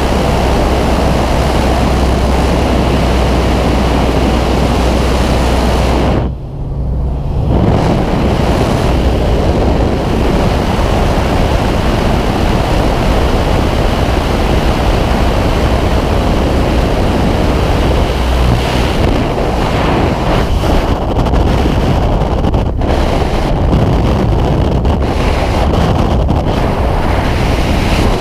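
Loud, steady wind noise buffeting the microphone at the open door of a jump plane, with the aircraft's engine droning low underneath for the first few seconds. There is a brief dip about six seconds in, and in the later part the wind turns gustier and more uneven as the skydiver falls free.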